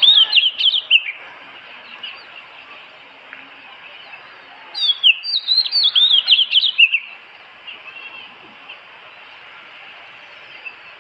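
Songbird singing two bursts of quick, falling whistled notes, one at the start and one about five seconds in, with a few fainter notes around eight seconds, over a steady faint hiss.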